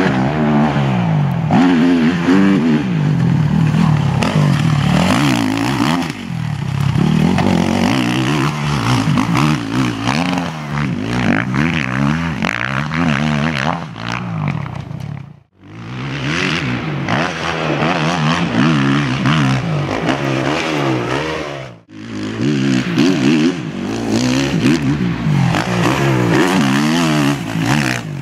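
Motocross dirt bike engine revving up and dropping back over and over as the bike is ridden over jumps and corners. The sound breaks off sharply twice, about halfway and about three quarters of the way through.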